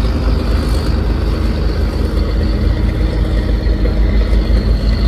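Engine of a wooden towing boat running steadily, a low, even pulsing drone.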